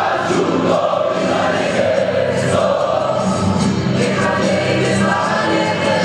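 A few hundred football supporters singing a chant together in unison, a steady mass of voices with a held melody.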